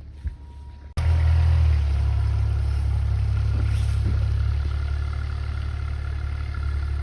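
Motor vehicle engine running steadily and loudly, cutting in suddenly about a second in, with a low rumble and a faint whine above it.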